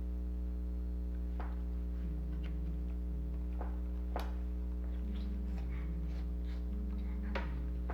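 Steady low electrical hum, with a handful of sharp clicks and taps at irregular moments, and faint low tones that shift in pitch in steps.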